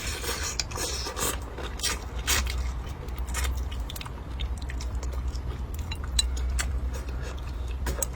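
A person chewing and biting food close to the microphone, likely sweet-and-sour crucian carp, with many short sharp clicks and crackles scattered throughout and a steady low hum underneath.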